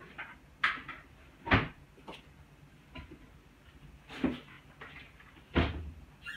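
A few separate knocks and clunks, the loudest about a second and a half in and again near the end.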